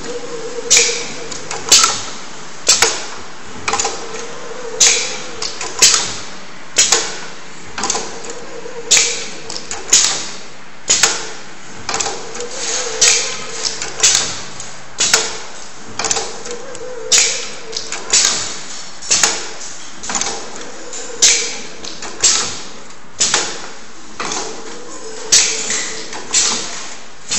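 Square paper baking cup forming machine running, its press and forming mechanism clacking sharply about once a second, each stroke a cup being formed, over a steady mechanical hum.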